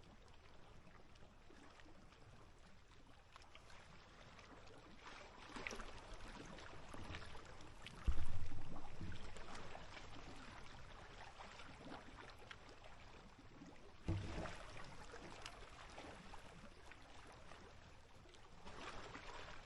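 Small waves lapping and popping against the lake edge, with scattered little splashes and two sudden louder low slaps, about 8 and 14 seconds in.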